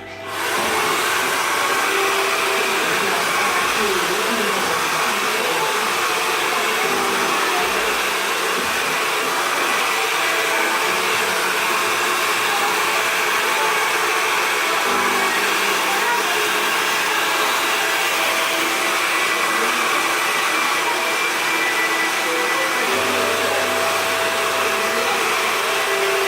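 Hair dryer blowing steadily during a blow-dry, switching on about half a second in.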